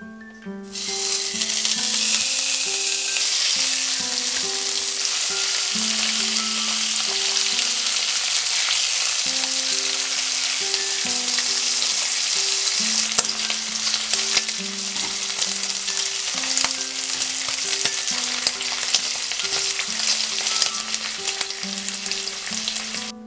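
Slices of smoked duck frying in a hot nonstick pan: a loud, steady sizzle that starts suddenly about a second in as the meat goes into the pan.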